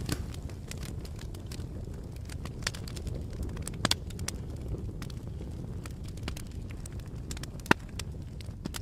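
Campfire burning with a steady low rumble of flames and frequent crackles, with a few louder pops of the wood, the loudest near the end.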